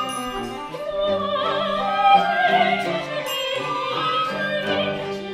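A woman sings a melodic line in Chinese with a wide vibrato, over an orchestral accompaniment of held notes, with a few bright chimes about three seconds in.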